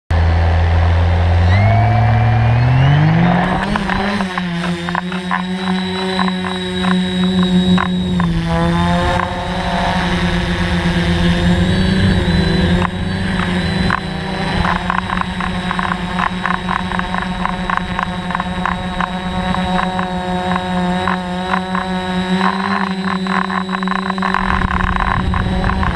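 The brushless motors and propellers of a DJI Flamewheel F550 multirotor spin up in quick rising steps over the first few seconds as it takes off, then settle into a steady, loud, many-toned buzz in flight, heard close-up from the airframe. A gusty rushing noise runs underneath.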